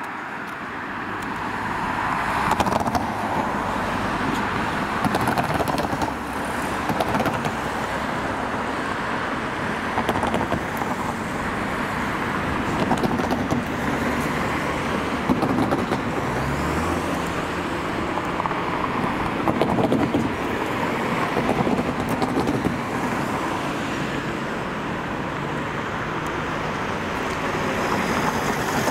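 Electronic railway level-crossing alarm sounding continuously from the crossing mast's speaker while the crossing is active, over steady road traffic noise.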